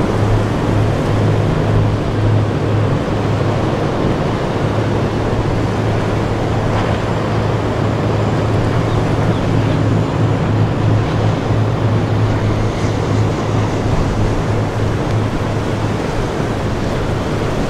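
Powerboat engine running with a steady low drone over a constant wash of wind and water noise.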